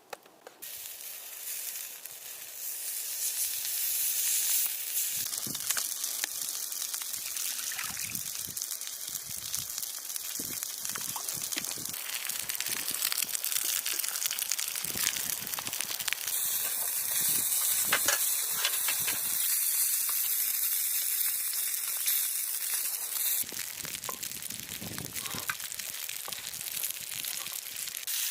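Food sizzling in a hot pan: a hiss that starts suddenly and builds over the first few seconds, with scattered pops and crackles throughout.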